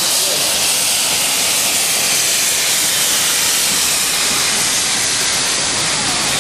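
SE&CR steam locomotive blowing off steam, a steady loud hiss, as it pulls past hauling its train of carriages.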